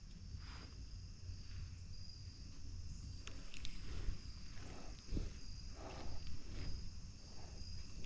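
Steady high-pitched insect chorus, with faint rustling and a few soft clicks and knocks.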